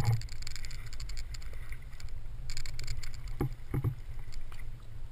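Sea water lapping and splashing at the surface around a camera held at the waterline, over a steady low rumble. There are a few soft knocks about three and a half seconds in.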